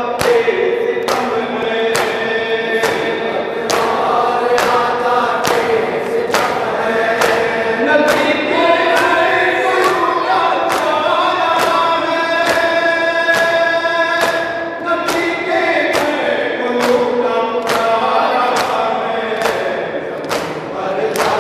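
A noha chanted by a group of men in unison, with hands beating the chest (matam) in a steady rhythm of about one and a half strokes a second.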